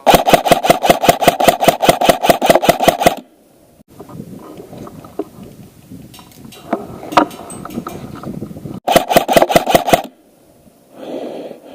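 ICS Transform4 airsoft electric rifle firing on full auto: a rapid, evenly spaced burst of shots lasting about three seconds, then a second, shorter burst about nine seconds in. Between the bursts there is quieter rustling and a few light knocks.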